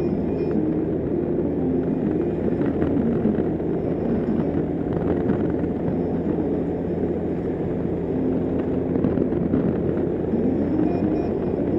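Honda Gold Wing motorcycle cruising at steady speed: an even, unbroken engine hum mixed with wind and road noise, with no change in pace.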